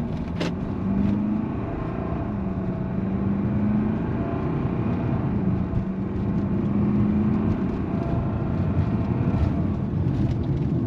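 Fiat Toro's diesel engine pulling the pickup along on the road. Its note climbs and drops back a few times as it goes through the gears, and there is a sharp click about half a second in.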